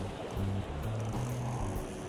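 Background music with a bass line that moves between held low notes.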